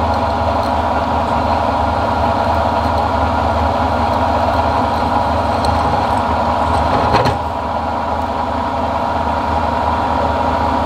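Milling machine running steadily with its drill bit cutting holes in a stainless steel plate, a continuous mechanical hum. A brief louder noise comes about seven seconds in, after which it runs a little quieter.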